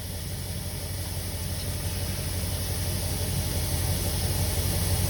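Air compressor running steadily while it inflates a tubeless tire, its bead held against the rim by a ratchet strap so it can seat. A low motor hum with a hiss of air above it, slowly growing louder.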